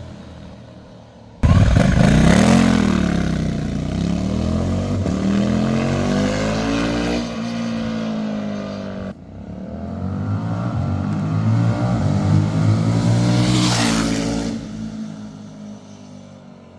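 Suzuki V-Strom 1050DE's V-twin engine through a Fuel Diablo slip-on exhaust, the motorcycle riding past under acceleration. The engine note cuts in suddenly about a second and a half in and rises and falls with the revs, then builds to a second loud pass near the end and fades away.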